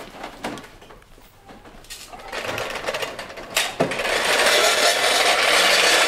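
Wheels rolling over pavement: a steady rolling noise that swells in from about two seconds in and is loud from about four seconds, with a couple of sharp knocks as it builds.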